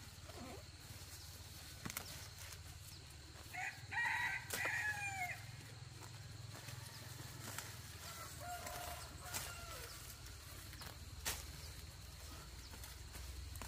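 A rooster crows once, about four seconds in, its call rising and then falling away at the end. A fainter second fowl call follows a few seconds later. A few sharp clicks and a low steady hum sit underneath.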